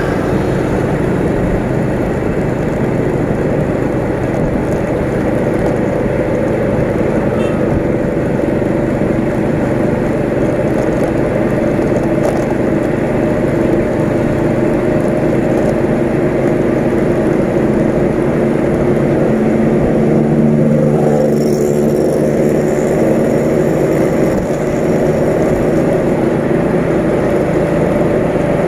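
Motorcycle engine running at a steady cruising pace, close from the rider's seat, with road and wind noise. The engine note shifts briefly about two-thirds of the way through.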